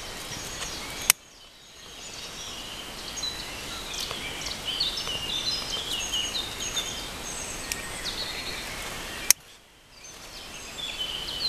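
Birds chirping in woodland over a steady outdoor noise, with the rustle of dry wood shavings being gathered by hand. Two sharp clicks, about a second in and near the end, each followed by a brief drop in the background.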